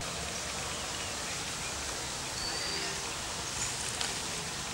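Steady outdoor background noise, an even hiss, with a faint short high chirp about halfway through.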